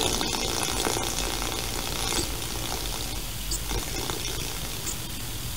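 Steady hiss with faint crackling from VHS tape playback, the last of the bumper music dying away in the first second or two.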